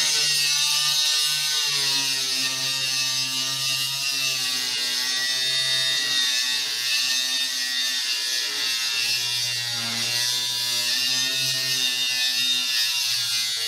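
Angle grinder with a thin cut-off disc cutting through a weld on a stainless steel plate: a steady motor whine under a high, gritty hiss of the disc on the metal. The pitch drops for a couple of seconds past the middle, then comes back up.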